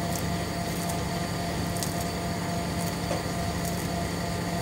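Steady machine-like hum with a low drone and a faint high whine, with a few faint ticks over it.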